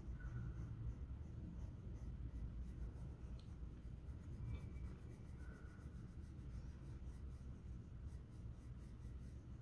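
Coloured pencil scratching on paper as a cabochon outline is shaded in quick repeated strokes.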